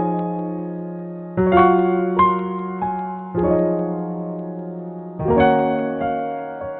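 Slow, gentle piano music: chords struck about every two seconds and left to ring and fade.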